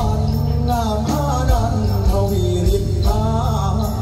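Loud music from a live stage show: a wavering, bending melody over a steady bass and beat.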